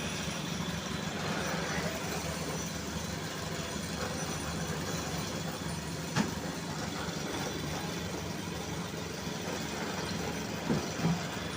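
Engine of road-construction machinery running steadily at a low, even pitch, with one sharp knock about six seconds in and two short louder knocks near the end.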